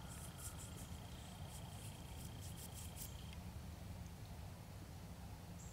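Faint outdoor ambience: a thin, steady high tone that cuts off abruptly a little past halfway, soft crackles and rustles in the first half, and a low rumble of wind or handling noise.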